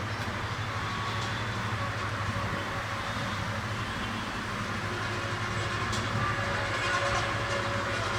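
Diesel-hauled passenger train running: a steady rumble with a low engine drone under it and a few faint clicks from the track.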